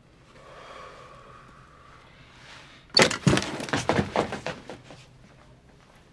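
A faint hum, then about three seconds in a loud clatter of knocks and bangs lasting about two seconds.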